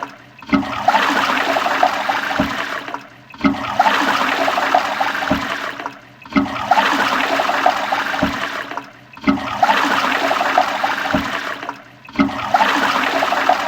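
Toilet flushing: a rush of water that cuts off and starts again abruptly about every three seconds, five times, each restart opening with a sharp surge.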